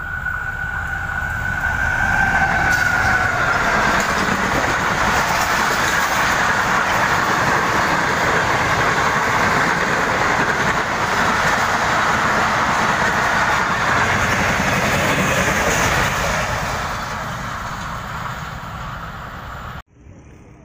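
Pakistan Railways GEU-40 diesel-electric locomotive and its passenger coaches passing at high speed. A high steady whine at the start fades as the train noise builds into a loud continuous rush of wheels on rails. The rush dies away in the last few seconds, then cuts off abruptly.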